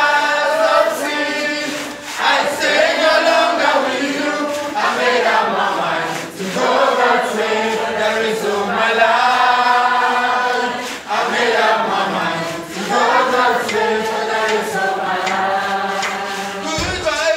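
Worship choir singing together in sung phrases with short breaks between them, led by a male singer on a microphone.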